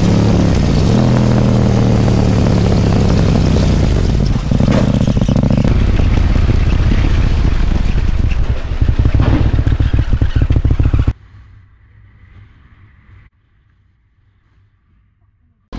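Motorcycle engine running on the road with heavy wind rush on a helmet-mounted microphone, its note rising and falling slightly. About eleven seconds in it cuts off abruptly to a much quieter scene with only a faint low hum.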